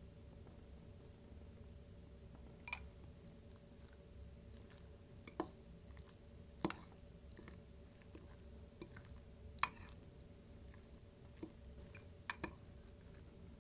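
Scattered short, sharp wet clicks and taps, about eight of them, a few in quick pairs, over a faint steady hum.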